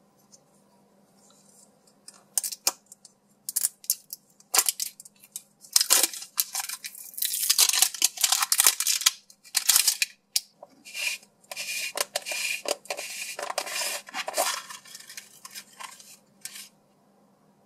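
Thin clear plastic seal film crinkling and tearing as fingers peel it off a plastic gashapon capsule. The sound comes as an uneven run of crackling bursts that starts about two seconds in, is densest in the middle, and stops shortly before the end.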